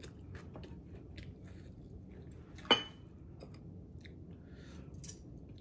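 A person chewing food, with small wet mouth clicks. One sharp clink with a brief ring comes a little before halfway.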